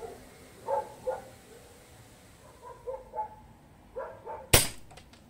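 A dog barks in short yips several times, then, about four and a half seconds in, a single sharp air-gun shot as its projectile strikes a concrete paving stone, followed by a few faint ticks.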